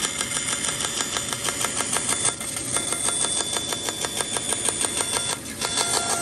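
Bandsaw running and cutting a curve through an HDF sheet: a steady high tone with a rapid, even ticking several times a second.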